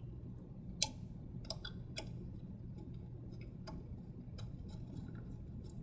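Small metal clicks and ticks at irregular intervals, two sharper ones about a second and two seconds in, from an Allen wrench turning the screws that fasten a DX5 printhead to its mount. A low steady hum runs underneath.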